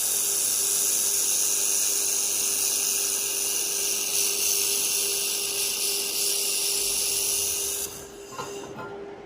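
1500 W handheld fiber laser welder with wire feed welding 3 mm stainless steel: a steady, high-pitched hiss that cuts off abruptly about eight seconds in. A steady low hum runs underneath.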